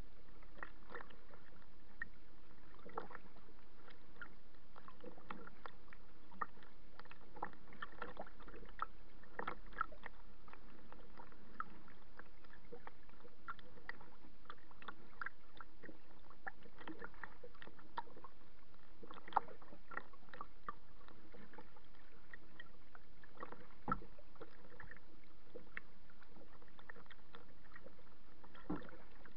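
Choppy water lapping and splashing against a kayak's hull: a steady wash with many small, irregular splashes.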